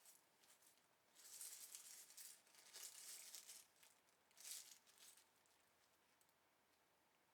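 Packaging crinkling and rustling as it is handled, in three bursts: a longer one about a second in, another around three seconds, and a short one near the middle, then it goes quiet.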